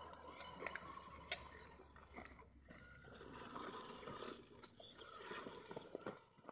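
Faint crunching and scattered small clicks of 1/10-scale RC trucks' tyres rolling over loose gravel.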